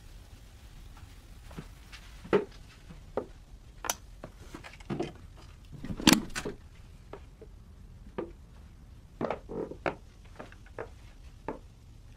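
Scattered soft knocks, taps and clicks over a low steady hum, with the loudest knock about six seconds in and a cluster around nine to ten seconds.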